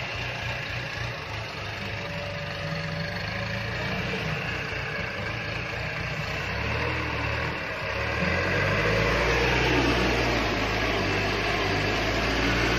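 An engine running steadily nearby, most likely landscaping machinery at work; its low drone grows louder about eight seconds in.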